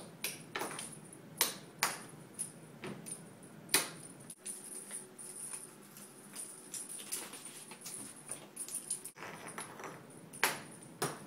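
Cat toys being tossed and batted across the floor: scattered light clicks and taps with some rattling jingle, three sharper knocks standing out, over a faint steady high whine.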